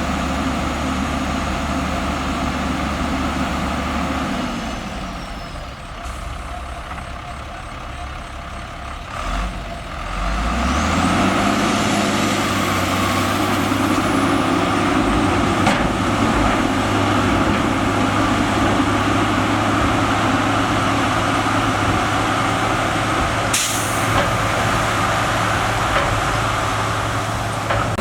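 Heavy diesel engine of earthmoving machinery running. It winds down a few seconds in and runs quieter, then revs up about ten seconds in and keeps working hard and steady. A brief sharp noise comes near the end.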